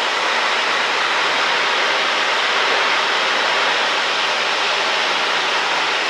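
Steady cabin noise of a Cessna 172 in cruise flight: a constant loud rush of propeller, engine and wind with a faint low drone beneath it.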